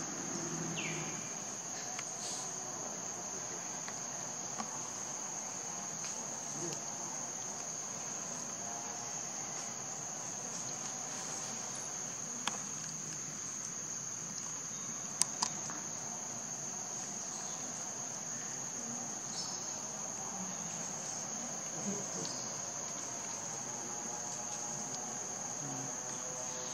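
Steady, high-pitched drone of forest insects, one unbroken tone, with a few sharp clicks near the middle.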